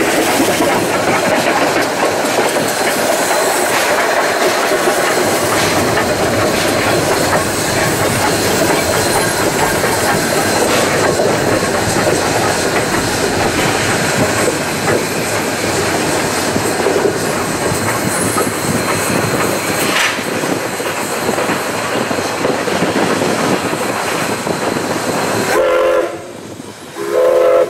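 Susquehanna 142, a 2-8-2 steam locomotive, running at speed with a train, heard from a car pacing alongside: a steady rush of running noise. Near the end its steam whistle sounds two short blasts of a several-note chord.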